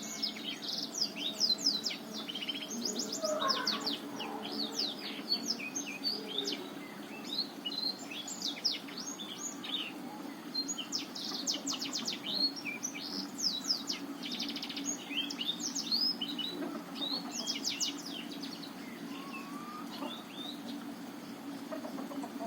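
Black-throated canary (blackthroat, Botswana type) singing a long, fast twittering song: phrases of rapid high trills and sweeping notes with short pauses between them, over a faint steady low hum.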